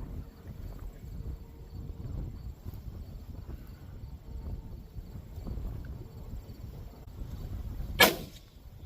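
Wind rumbling on the microphone, then a single rifle shot from a Winchester 94 lever-action in .30-30 about eight seconds in, with a short echo.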